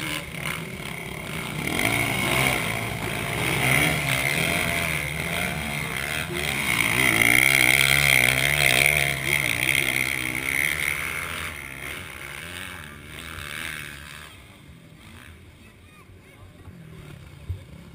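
Motocross bikes revving through a dirt berm turn one after another, engine pitch rising and falling as they pass. Loudest about halfway through, then dying away to faint distant engine noise near the end.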